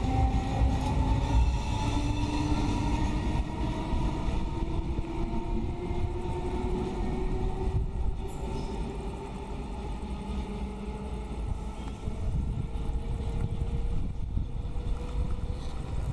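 Trenitalia E.464 electric locomotive accelerating away with its regional train: the electric whine of its traction drive rises steadily in pitch over the rumble of the wheels, and the whole sound fades gradually as the train draws away.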